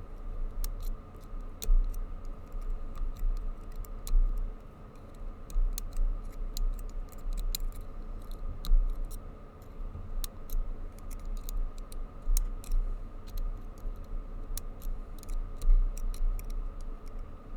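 Irregular light metallic clicks and taps from a pick probe pushing down the pins of a Master Lock Street Cuff's tubular lock, working around the circle under tension, over a low handling rumble. The clicks are pins setting, or springing back up as others are pressed.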